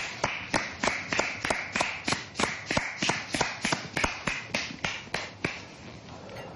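A few people clapping their hands in a steady rhythm, about three to four claps a second, dying away about five and a half seconds in.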